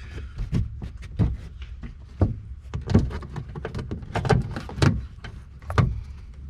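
Irregular clicks and knocks of plastic trim and push-pin fasteners being handled and pressed into place while the Mustang's rear trunk trim is refitted, with a few louder knocks in the middle.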